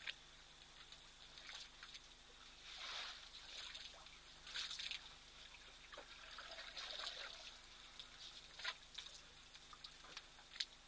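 Faint, intermittent trickling and splashing of water as elephants drink and move at a waterhole, in irregular bursts of half a second or less with a few sharp clicks. A steady, thin high tone runs underneath.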